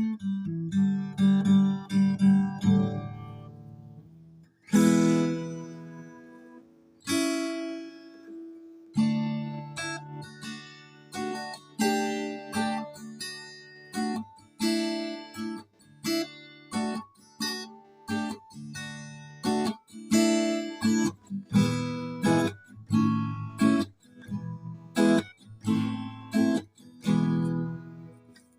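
Acoustic guitar strummed: chords struck in a steady rhythm, with two chords left to ring out about five and seven seconds in.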